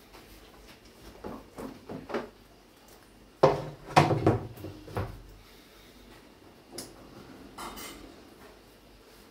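Knocks and rattles of a lid being fitted onto a glass tank: a few light knocks, then a burst of loud knocking and clattering between about three and a half and five seconds in, and two faint clicks later.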